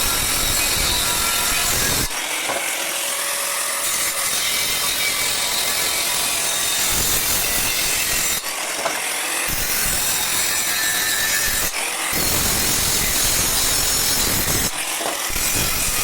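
Loud, harsh, continuous metalworking noise on steel, grinding or arc-welding, in several stretches that change abruptly from one to the next.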